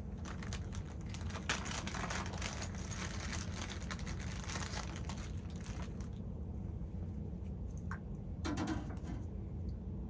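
Clear plastic bag crinkling and rustling as small chainsaw parts are handled in it, dense for the first six seconds, then a short crinkle about eight seconds in, over a steady low hum.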